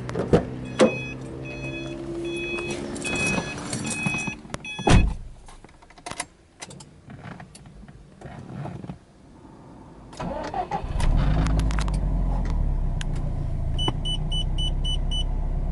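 A car's warning chime beeps repeatedly while a door thumps, the loudest thump a door shutting about five seconds in. About eleven seconds in, the Subaru Impreza R205's turbocharged 2.0-litre flat-four boxer engine cranks, fires and settles into a steady idle, with a short run of quick beeps near the end.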